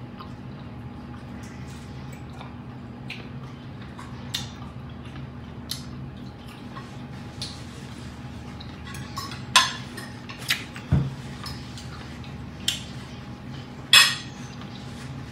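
Fork and knife clinking against a dinner plate during a meal: a scattering of sharp clicks, the loudest about ten seconds in and near the end, over a steady low hum.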